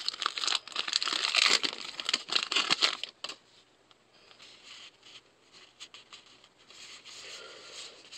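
2011 Topps Allen and Ginter baseball card pack wrapper being torn open and crinkled for about three seconds, then quieter rustling as the cards are handled.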